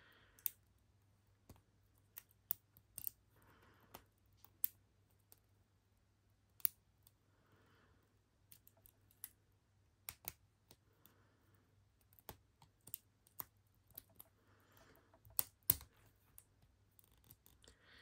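Lock pick and tension wrench working the pin stack inside a Smith & Lowe laminated padlock: small, sharp metallic clicks and ticks at irregular intervals, a few of them louder, the loudest a quick pair about fifteen seconds in.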